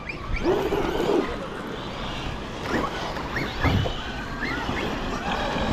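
Electric RC cars running: brushless motors whining in short rising and falling revs, over wind noise on the microphone.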